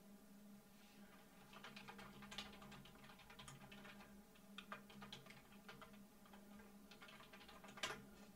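Faint computer keyboard typing: quick runs of key clicks as a search phrase is typed, with one louder keystroke near the end.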